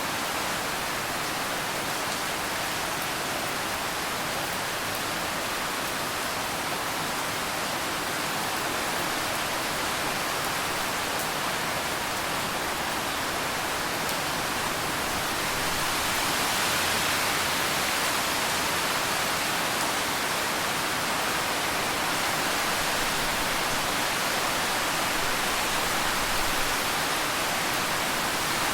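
Steady rain falling, an even hiss with no distinct drops standing out, growing a little heavier about halfway through.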